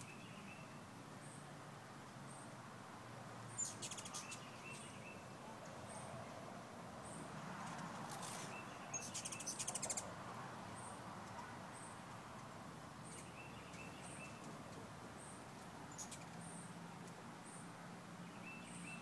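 Hummingbirds calling: thin, high chip notes repeating about once or twice a second, broken by short bursts of rapid twittering chatter about four seconds in, again around eight to ten seconds, and briefly near sixteen seconds.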